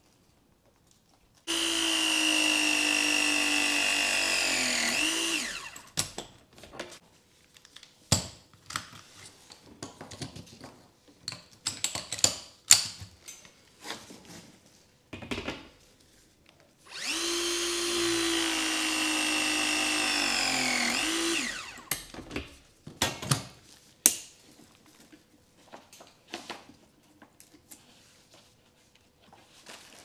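Battery-powered ACO103 press tool crimping press fittings onto copper gas pipe, twice: each time its motor runs steadily for about four seconds, then falls in pitch as the press cycle finishes. Clicks and knocks of the tool and fittings being handled come between the two crimps.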